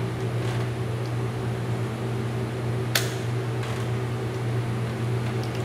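Steady mechanical hum, like a shop fan or ventilation unit, with a single sharp click about three seconds in.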